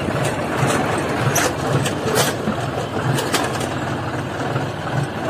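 John Deere 5050D tractor's three-cylinder diesel engine running with a steady low throb as the tractor drives along a rough dirt track, with a few sharp rattling clicks.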